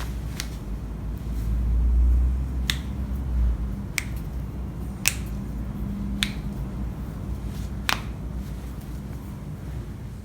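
Sharp joint cracks during a chiropractic spinal adjustment: about six separate pops, one every second or two, over a low rumble of body handling during the first few seconds.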